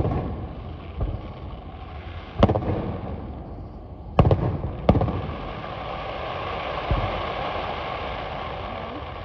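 Aerial firework shells bursting overhead: about six sharp bangs, four of them loud, with a steady crackle from falling stars filling the second half.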